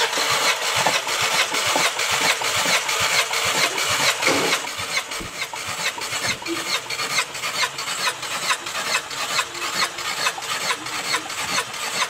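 Skoda Superb petrol engine cranked by its starter motor with the spark plugs out, for a wet compression test. It spins over fast in a steady, even rhythm of pulses without firing.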